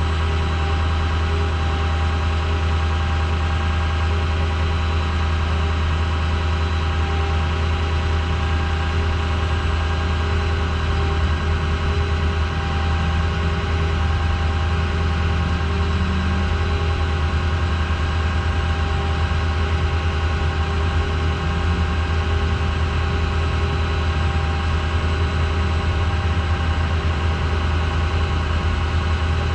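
Flatbed tow truck's engine idling steadily: a constant low hum that stays the same throughout.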